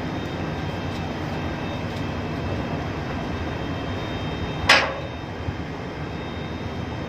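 Steady hum of shipboard machinery on deck, with one short, sharp noise about two-thirds of the way through.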